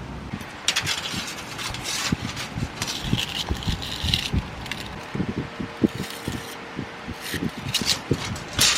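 Irregular sharp knocks and short scrapes of hard building pieces being handled and set in place by hand, with a brief steady tone about midway.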